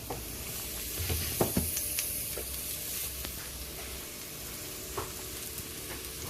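Garlic sizzling in hot vegetable oil in a pan, a steady frying hiss, with a few light clicks of a utensil against the pan as it is stirred.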